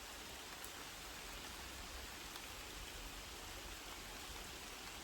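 Steady light rain falling, a faint, even hiss with the odd single drop ticking.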